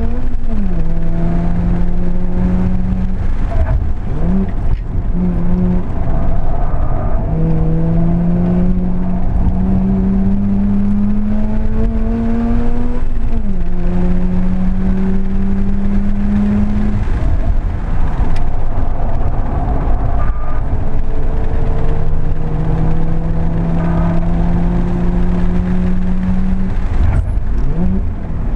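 Mazda RX-8's Renesis two-rotor rotary engine heard from inside the cabin on track, pulling hard with its pitch held or slowly climbing for several seconds at a time. A few times the pitch dips sharply and comes back up as the driver lifts and changes gear, over steady road and tyre rumble.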